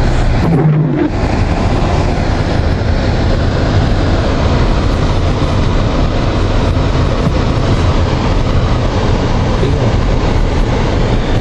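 Car driving along a snow-covered road: a loud, steady low rumble of tyres and engine.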